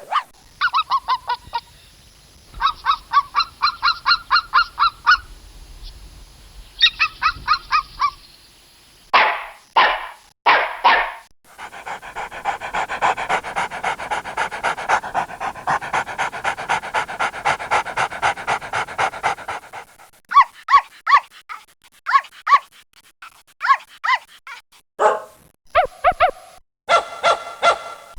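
Dogs barking and yapping in a string of separate takes. There are quick runs of short high yaps, a few single barks, then a long stretch of dense, overlapping barking in the middle before more short barks.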